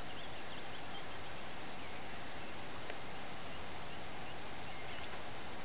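A few faint bird chirps over a steady background hiss of outdoor morning ambience.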